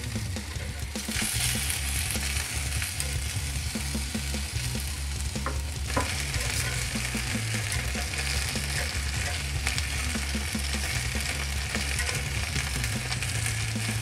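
Chicken halves sizzling on a charcoal grill grate directly over hot coals, skin side down; the sizzle grows louder about a second in, once the pieces are turned onto the heat. A couple of sharp metal clicks from tongs on the grate come about halfway through.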